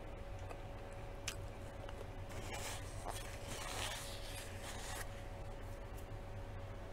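Hands rubbing together in a rustling scrape for about two and a half seconds, after a single light click about a second in, over a faint steady hum.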